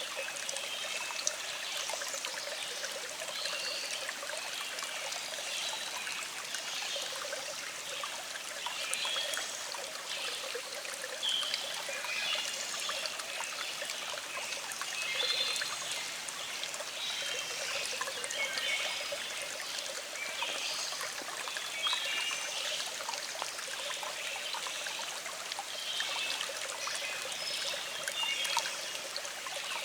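A small stream flowing and trickling over rocks, a steady babbling with lots of little splashes and gurgles.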